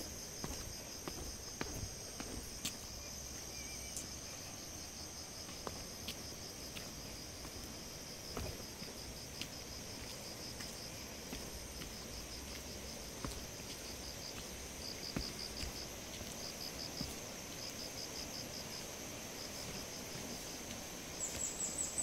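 Forest insects chirring steadily: a continuous high-pitched drone with a faster pulsing chirp just beneath it. Soft footsteps on the concrete path knock now and then, and near the end a quick run of short, higher chirps cuts in.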